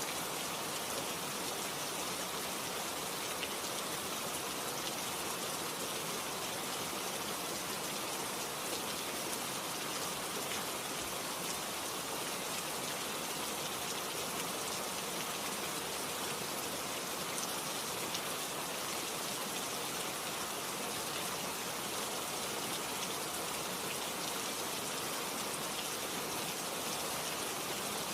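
Steady rain falling, an even hiss of many drops with faint scattered patters on a surface.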